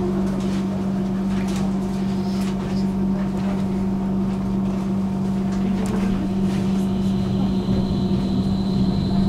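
Tram running, heard from on board: a steady low hum over rumble, with a thin high whine coming in about seven seconds in.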